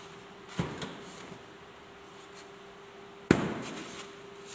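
A foam mattress being put onto a hospital bed's steel frame and perforated sheet-metal deck: a dull thump about half a second in, then a loud, sharp bang a little after three seconds in.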